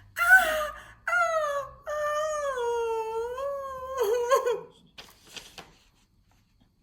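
A wordless wailing voice: three drawn-out cries, the third and longest sliding down in pitch and ending in a shaky wobble, followed by a few faint clicks.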